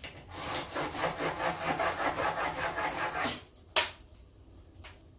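Plane iron clamped in a honing guide rubbed rapidly back and forth on a sharpening stone for about three seconds: a few trial strokes to show where the bevel touches, then a single sharp click as the rubbing stops.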